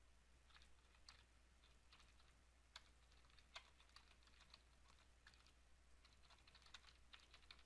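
Faint computer keyboard typing: irregular runs of soft key clicks, over a faint low hum.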